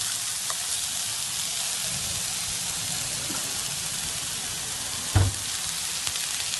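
Chicken and vegetables sizzling steadily in a frying pan. There is a single knock about five seconds in.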